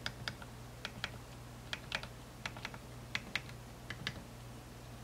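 The replacement F-key push-buttons on an IFR-1600 service monitor's front panel are pressed one after another, giving an uneven string of light, sharp clicks, a dozen or more. The F2 key, which had been seated on top of its rubber keypad instead of under it, now clicks properly.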